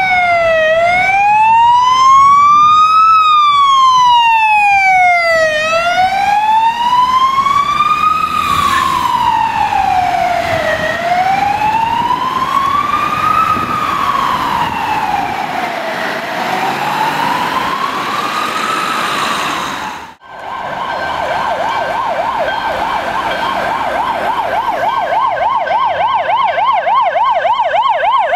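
Mercedes-Benz ambulance siren on a slow wail, rising and falling every few seconds, as the ambulance passes and draws away. After a sudden cut about 20 seconds in, a second ambulance's siren sounds a fast yelp, sweeping up and down several times a second.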